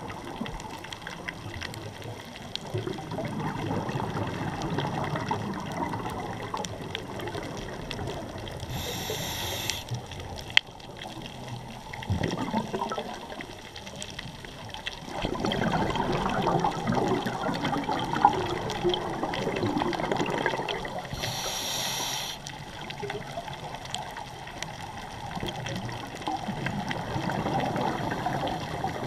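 Scuba breathing through a regulator, heard underwater: several seconds of bubbling exhalation, then a short hiss of inhalation, repeating about every ten to twelve seconds. Two sharp clicks stand out briefly.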